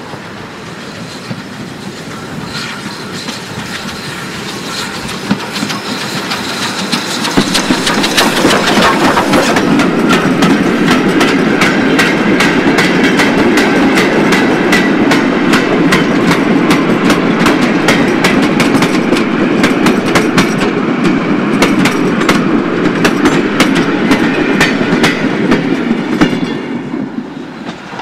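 BR Standard 4 tank engine No. 80072 and its train of goods wagons running past. The rumble builds over the first several seconds, then grows loud with rapid clicking of the wagon wheels over the rail joints, and falls away near the end.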